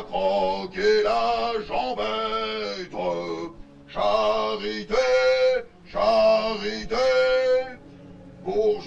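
A man singing a slow song in short phrases, several of them ending on long held notes, with brief breaks between phrases.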